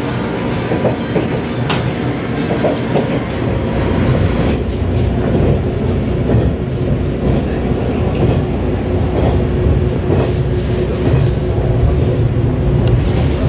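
Electric train running along the track, heard from inside the car: a steady rumble with the wheels clacking over the rails, growing louder about four seconds in.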